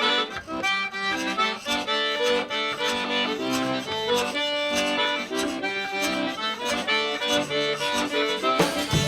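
Accordion playing a lively tune of quickly changing notes over a steady beat. Just before the end, a fuller band with a bass line comes in.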